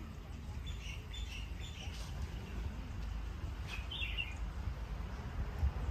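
Small birds chirping in short bursts: a quick series in the first couple of seconds and another cluster about four seconds in, over a steady low rumble.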